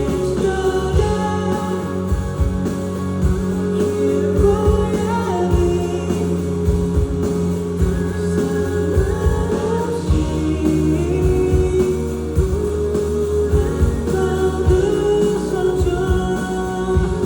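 A live pop-rock song: a singer's voice over a band with guitar and a steady beat.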